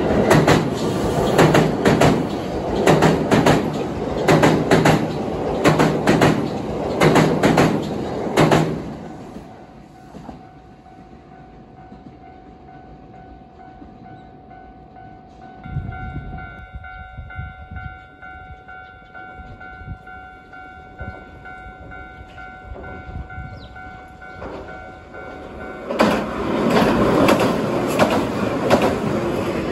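An electric train passing close by, its wheels beating out a rapid clatter over the rail joints for the first eight or so seconds, then fading. A quieter steady hum follows, and another train passes loudly near the end.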